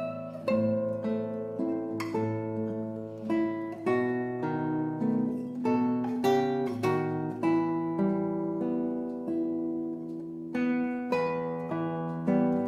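Solo classical guitar played fingerstyle: a slow melody of plucked notes over held bass notes, each note ringing on.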